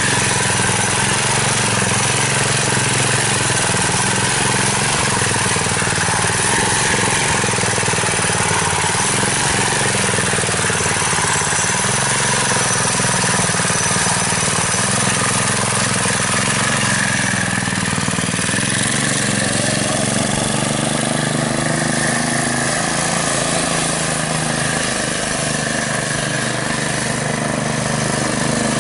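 Mini bike's small engine running steadily. About two-thirds of the way through, its pitch rises and falls as it is revved.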